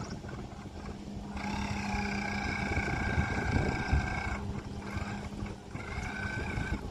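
RC boat motor whining at a steady high pitch while the boat runs on the lake. The whine starts about a second and a half in, drops out for about a second past the middle, and returns briefly near the end, over a low rumble.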